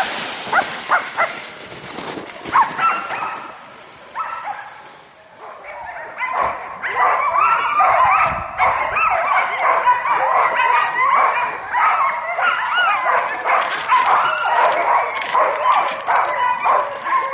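A team of harnessed sled dogs yipping, barking and whining together, many voices overlapping; after a few scattered barks and a short lull, the din starts about six seconds in and keeps up without a break, the clamour of sled dogs eager to run.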